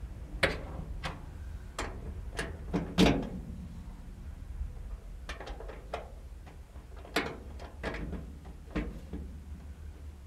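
Irregular metal clicks and knocks as the electric wiper assembly's pivot hardware is fitted by hand into the steel windshield header of a 1949 GMC pickup cab. The loudest knock comes about three seconds in, over a steady low hum.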